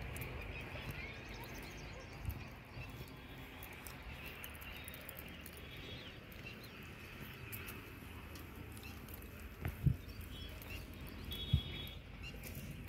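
Faint bird chirps over a steady outdoor background hiss, with two sharp thumps in the latter half and a softer one about two seconds in.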